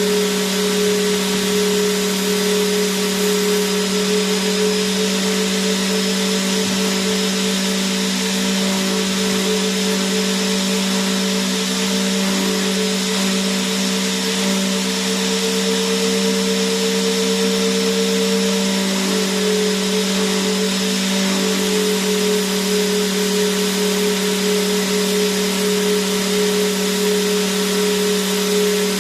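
Vacuum cleaner running steadily without a break: a constant low motor hum with a higher steady tone over a broad rushing hiss of air.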